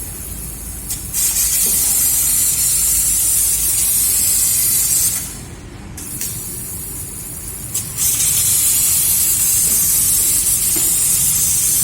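CNC laser cutter cutting sheet steel: the assist gas hisses at the cutting head, stops for a moment about five seconds in, comes back weaker, and is loud again from about eight seconds in, over a low, steady machine hum.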